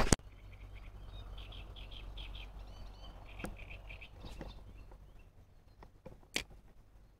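Small birds chirping over and over in quick runs, with a few sharp clicks from handling a spinning rod and reel, the loudest about six seconds in.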